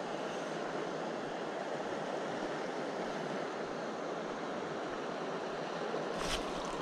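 South Platte River water rushing steadily over its riffles, with a short burst of louder noise near the end.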